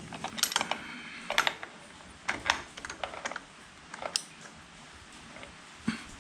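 Irregular short clicks and clinks, like small tools and metal parts being handled and set down, in clusters a second or so apart.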